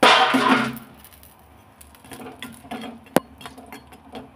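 Steel utensil clinking and scraping against a steel bowl, with a loud clatter right at the start and a single sharp clink about three seconds in.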